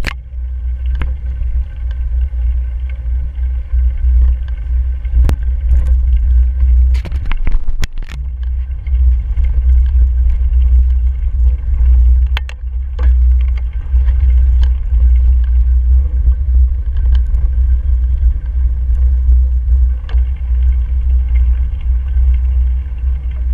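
Riding noise from a mountain bike on a rough dirt trail: a steady deep rumble of wind buffeting the microphone and tyres on the ground, with sharp knocks and rattles as the bike hits bumps, a quick run of them about seven to eight seconds in.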